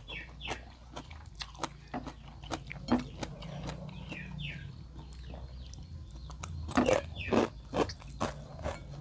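Close-miked eating: wet chewing and lip smacking of hand-eaten rice and fried food, with sharp crunchy bites and clicks, the loudest bites coming in a cluster about seven seconds in. A steady low hum runs underneath.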